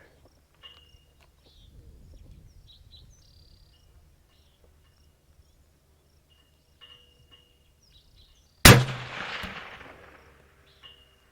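A single suppressed 6.5 PRC bolt-action rifle shot about three-quarters of the way through, a sharp crack followed by a rolling echo that fades over about two seconds. Birds chirp faintly before it.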